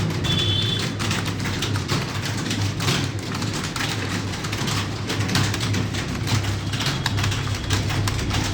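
Many computer keyboards clattering at once as a room full of students types against the clock, a dense, irregular rain of key clicks over a steady low hum. A short high tone sounds about half a second in.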